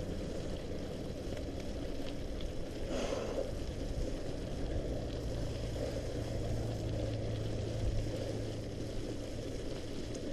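Mountain bike tyres rolling through mud and slush: a steady wet rush, with one brief louder swish about three seconds in.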